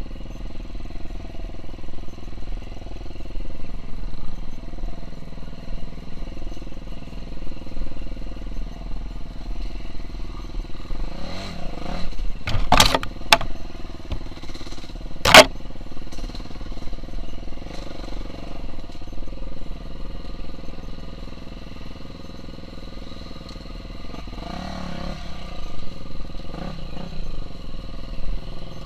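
KTM 350 SX-F's single-cylinder four-stroke engine running as the bike is ridden, its note rising and falling with the throttle. A few sharp knocks come about halfway through, and the loudest one follows a couple of seconds later.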